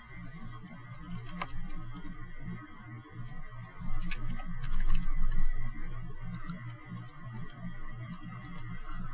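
Computer keyboard and mouse clicking here and there, scattered sharp clicks over a low hum.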